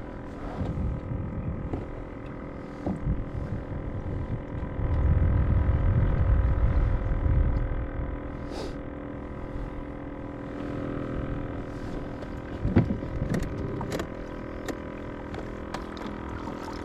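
Minn Kota Endura 30 lb thrust electric trolling motor running steadily, a whine of several steady tones, pushing a kayak across the water. A low rumble swells for a few seconds in the middle, and a few light knocks come near the end.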